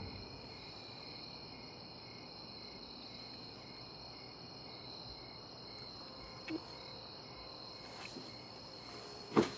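Crickets chirping steadily and faintly as a night-time background, with a single sharp knock near the end.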